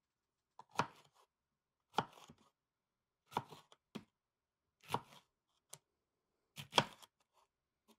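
A knife chopping onions, in slow, sharp, unevenly spaced strokes about once a second.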